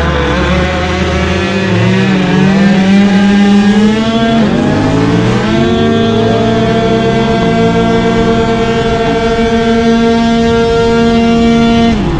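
A 49cc two-stroke scooter engine and several motorcycles accelerate away together, their engine notes rising in pitch, with a deep rumble from a bigger bike in the first second or so. From about halfway through, the scooter engine holds a steady high-revving buzz at cruising speed, with wind noise.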